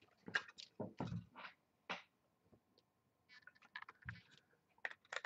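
Light clicks and taps of trading cards and a hard plastic card case being handled on a table, with a soft knock about a second in and a quiet stretch in the middle.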